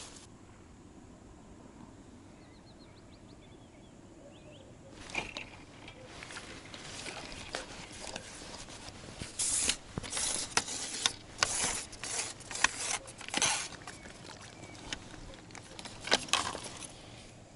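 Quiet outdoor ambience with a few faint bird chirps, then, from about five seconds in, a run of rustles, clicks and short scrapes as an angler handles a long pole rod close to the microphone while a small roach is hooked and swung out of the water.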